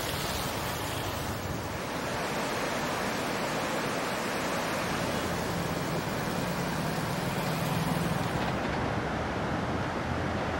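Floodwater of a monsoon-swollen river in spate rushing past, a steady, unbroken wash of noise.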